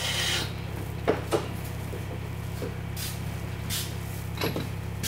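Milling machine running with a steady low hum, with a handful of sharp clicks and knocks scattered through it.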